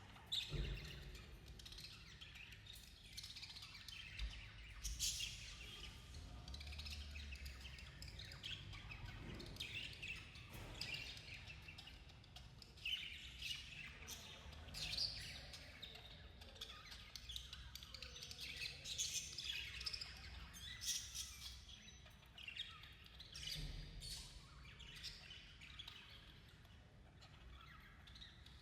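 Budgerigars chirping: a steady stream of short, overlapping high chirps with no pauses.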